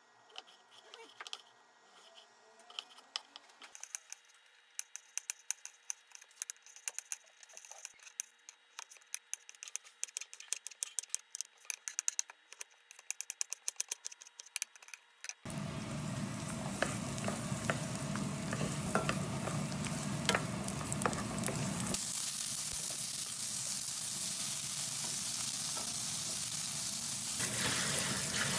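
Kitchen knife chopping on a wooden cutting board, a quick run of sharp knocks, as garlic cloves and then cooked chicken breast are sliced. About fifteen seconds in this gives way to a steady sizzling hiss with scattered clicks. Near the end, tap water runs onto noodles in a plastic colander.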